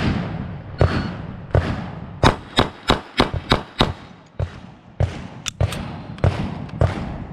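A shot-timer beep, then about a second and a half later six rapid shots from a Glock 45 9mm pistol, roughly a third of a second apart, drawn from concealment: a Bill Drill string of about three seconds. Softer, steadily spaced gunshots from other shooters on the range sound throughout.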